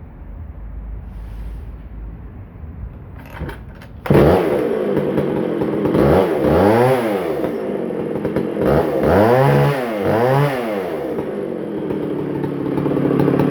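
Vintage McCulloch Super Pro 125 two-stroke chainsaw, just repaired with a new fuel line, starts suddenly about four seconds in. It is revved up and back down twice, then runs steadily.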